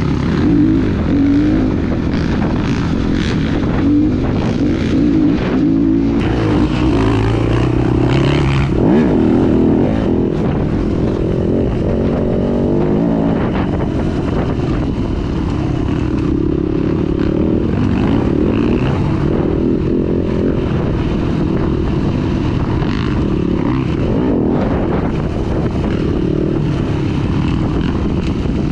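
Trail dirt bike engine running under way, close to a helmet-mounted camera, its note rising and falling as the throttle is worked over rough dirt track.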